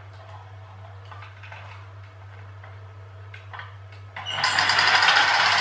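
A few faint handling clicks, then about four seconds in a loud, fast rattling buzz starts suddenly: the coil-spring motors of Lanard pull-cord toy trucks unwinding as the trucks are let go.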